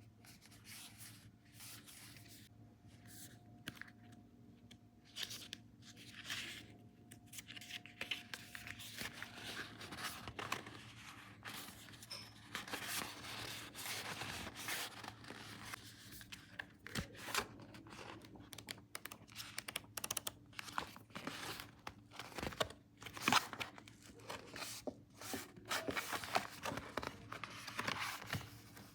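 Paper being handled close up: repeated rustling, crinkling and tearing of sheets, in irregular strokes that grow busier partway through.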